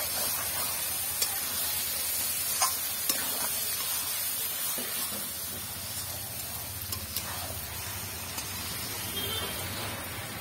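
Raw mutton pieces sizzling in hot oil and masala in an aluminium kadai as they are stirred, a steady frying hiss with occasional clicks of the spatula against the pan.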